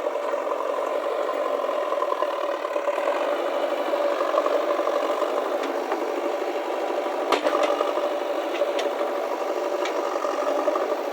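JCB backhoe loader's diesel engine running steadily with a rattle, and one sharp clank a little past seven seconds in.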